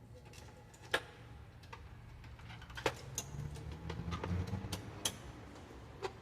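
Scattered sharp clicks and taps of printer parts being handled and fitted by hand, the loudest about a second, three seconds and five seconds in, over a low steady hum.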